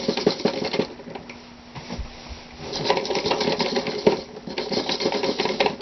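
Dry lye beads rattling in a container as they are poured and shifted, a dense rapid clatter. It comes in a short spell at the start and a longer run from about halfway through.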